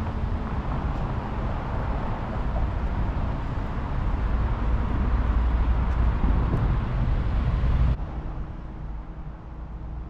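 Outdoor city background noise, a steady low rumble like street traffic. It grows louder about halfway through, then drops suddenly to a quieter hush about eight seconds in.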